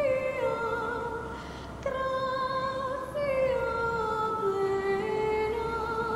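Background music: a slow melody of long held notes that slide down from one note to the next.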